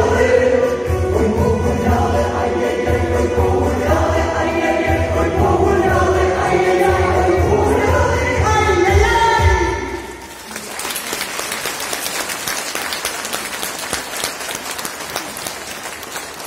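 Women's folk ensemble singing in chorus into microphones over amplified musical accompaniment with a steady low beat. The song ends about ten seconds in, and the audience breaks into applause.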